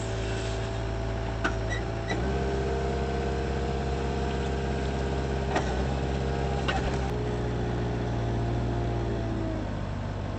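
Moffett truck-mounted forklift's engine running, heard from the driver's seat. Its note steps up to a fuller, heavier sound about two seconds in as the machine works, then drops away near the end. A few short knocks from the machine come in between.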